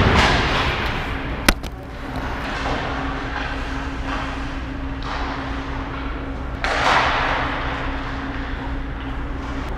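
Ice arena ambience: a steady hum under a constant rush of noise, with a sharp click about a second and a half in and a louder swell of noise about seven seconds in.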